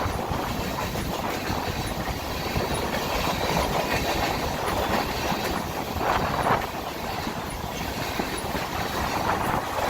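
Union Pacific local freight train rolling past, its wheels clattering on the rails, with heavy wind noise on the microphone. The noise swells now and then.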